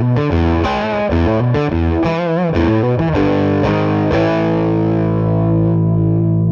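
Gibson Les Paul electric guitar through a Ceriatone 5E3 tweed Deluxe-style tube amp on a crunch tone: a distorted riff of changing chords and notes, then a chord struck a little past four seconds in and left to ring.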